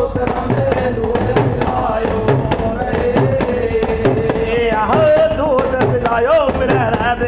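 Devotional bhajan sung by men's voices over a quick, steady beat of sharp hand-percussion clicks. A long held, slightly wavering sung note gives way to a moving melodic line about halfway through.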